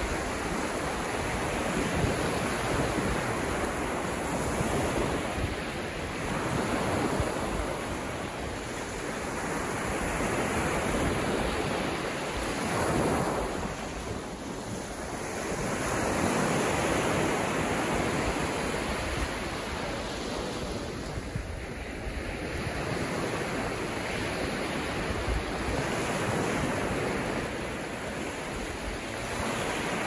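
Calm sea surf: small waves breaking and washing up over a sandy beach, the hiss of the water swelling and easing every few seconds.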